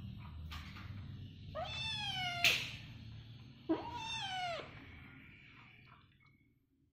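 Grey-and-white kitten meowing twice, two drawn-out calls about two seconds apart, each rising and then falling in pitch. A sharp click comes at the end of the first meow.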